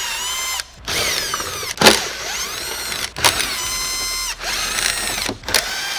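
Cordless drill/driver backing out 7mm screws from an underbody panel in about half a dozen short runs, each around a second long, its motor whine sliding in pitch as it speeds up and slows. A sharp click about two seconds in is the loudest moment.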